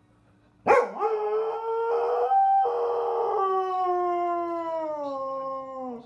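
A dog howling: one long howl that starts sharply just under a second in, swoops up, holds, then slowly falls in pitch near the end.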